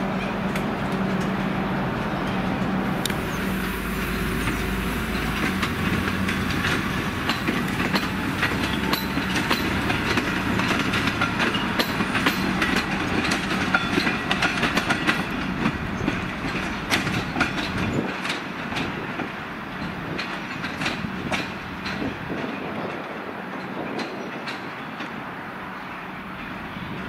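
V/Line locomotive-hauled passenger carriages rolling slowly past, steel wheels clicking over rail joints and points, with a steady hum early on. The sound gets quieter in the second half as the train moves away.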